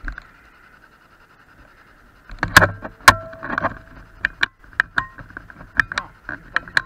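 Irregular sharp clicks and knocks, starting about two seconds in, a few with a brief ringing tail, over a faint steady high hum.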